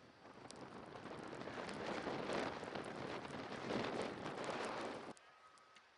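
Blizzard wind blowing, a rushing hiss that swells through the middle and cuts off suddenly about five seconds in.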